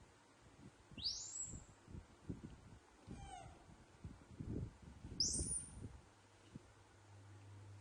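A young animal giving two short high-pitched squeals, each rising quickly and then holding, about four seconds apart, with soft low thumps of movement between them.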